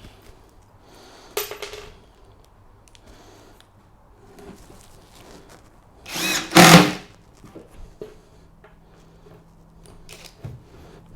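Power drill-driver running in short bursts, driving screws down through a wooden stair tread into the support block beneath. There is a brief burst about a second in, then a louder one lasting about a second just past the middle, with a few small knocks in between.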